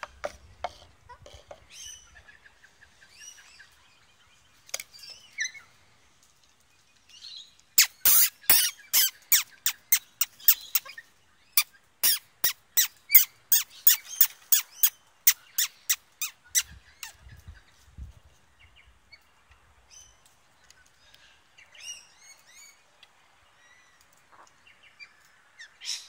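Galah giving a long run of short, harsh calls, about three a second, for roughly ten seconds in the middle, with faint chirps of smaller birds before and after.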